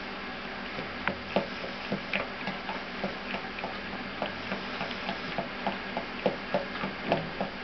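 A utensil stirring and scraping melted chocolate in a bowl, making irregular light clicks against the bowl a few times a second over a steady hiss.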